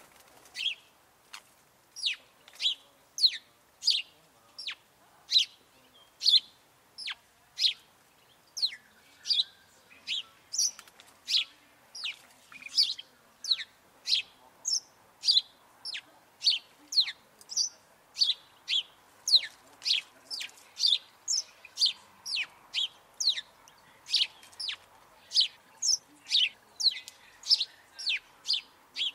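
Sparrows chirping close by: a steady run of short, high chirps, about two a second, each a quick falling note.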